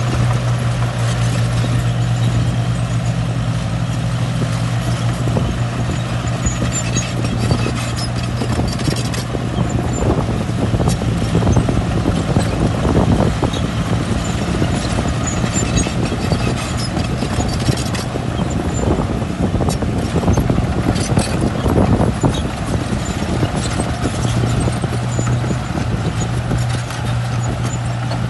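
Heavy diesel engine of a bulldozer running steadily under load, a constant low drone, with scattered metallic clanks, typical of steel crawler tracks.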